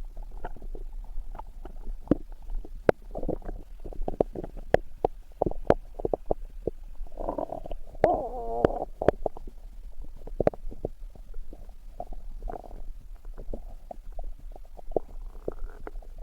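Human stomach growling and gurgling: a steady stream of small pops and clicks, with longer rumbles about three seconds in and midway, one of them a wavering pitched growl.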